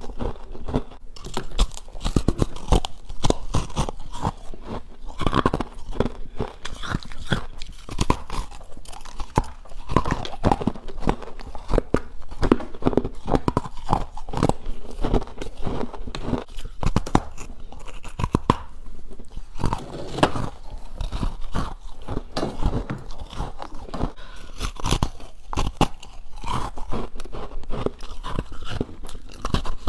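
A person biting and chewing freezer frost, close up: a continuous run of irregular icy crunches.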